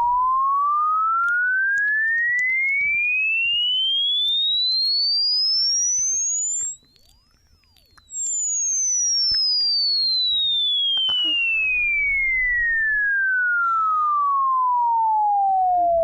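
Headphone test tone: a pure sine-wave sweep gliding steadily up in pitch to a very high whistle, cutting out for about a second just before halfway, then gliding steadily back down. It is a test of whether the left and right headphone drivers match, the tone meant to sit in the middle of the head at every pitch.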